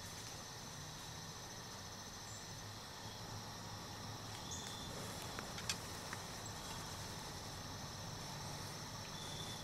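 Crickets chirping steadily in a faint evening insect chorus, over a low rumble. One light click about halfway through.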